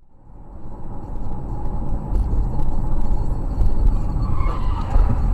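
Car driving on the road, with engine and tyre rumble heard from inside the cabin through a dashcam microphone. The rumble fades in over the first second and then holds steady.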